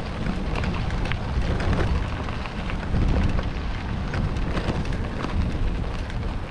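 Wind buffeting the microphone while moving, a steady low rumbling rush with fine crackling throughout.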